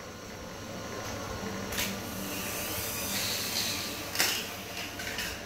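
Rustling and crinkling of a ribbon and plastic artificial-tree branches being handled, a hissing noise that swells in the middle, with two sharp crackles.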